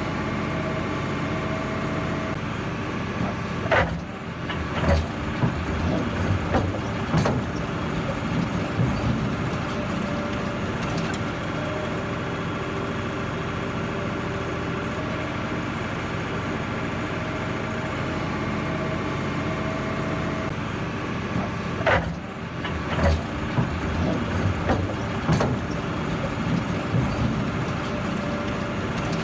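A heavy machine's engine running steadily, with two spells of sharp knocks and cracks, one about four seconds in and another about twenty-two seconds in.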